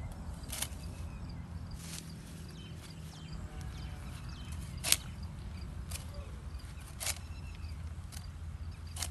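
A hand sickle slicing through green fodder stalks: about seven sharp, short cuts at irregular intervals, the loudest near the middle, over a steady low rumble.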